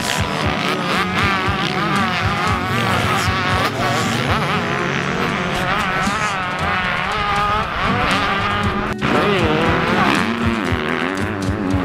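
Several motocross bikes revving as they ride past on a dirt track, engine pitch rising and falling with throttle and gear changes.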